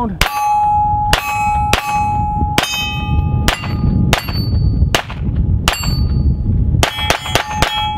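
Taurus TX22 .22 LR pistol firing CCI Mini-Mag rounds at steel targets, about a dozen shots, each hit ringing on the steel with a clear tone. The shots come roughly one a second, then a quick string of four or five near the end.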